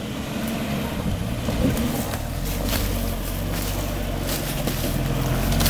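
Mitsubishi Triton 4WD ute's engine labouring under load as it crawls up a steep rutted dirt track, growing louder as it approaches. Scattered cracks and crunches come from sticks and stones under the tyres.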